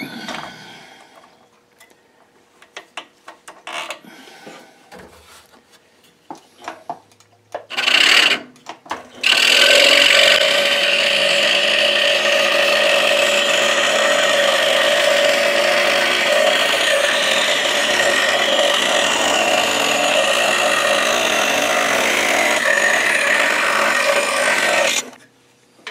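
Scroll saw running and cutting an inside window cut in a wood block, steady from about nine seconds in until it stops shortly before the end. Before that come scattered light clicks and knocks as the blade is set through the drilled hole, and a short loud burst about eight seconds in.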